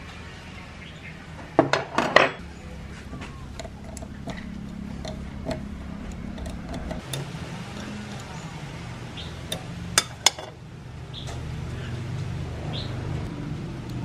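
Metal parts of an old table fan clanking and clinking as they are handled on a wooden workbench: a quick run of loud clanks about two seconds in, two more sharp ones near ten seconds, and lighter clicks of metal and tools in between.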